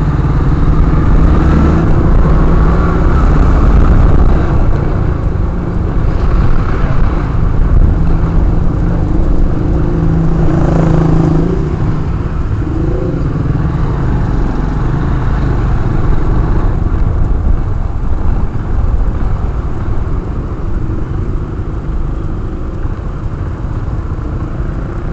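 Motorcycle riding in traffic, heard from a helmet-mounted camera: the engine running under a steady rush of wind and road noise on the microphone, a little louder in the first half.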